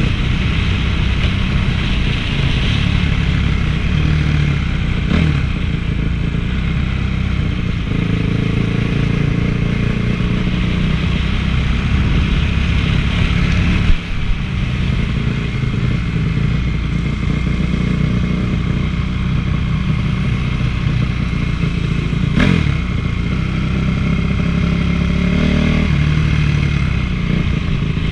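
Honda CRF450 single-cylinder four-stroke motocross engine running hard on a ride, its revs rising and falling with the throttle. There is one sharp knock about halfway through.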